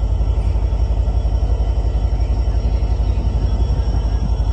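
Amtrak F59PHI diesel-electric locomotive idling with its train standing at the platform: a steady low rumble with a fast, even throb.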